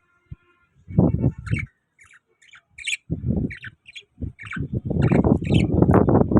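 Pet parrots chirping in a string of short, high calls. Louder low rustling bursts run underneath and become nearly continuous near the end.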